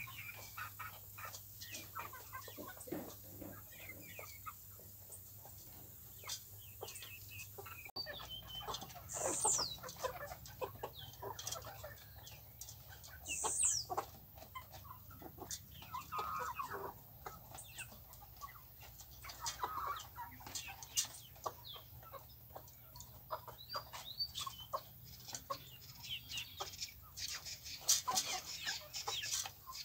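A flock of young chickens clucking softly as they peck and scratch for food on dirt, with many short ticks of pecking and a couple of high, falling calls.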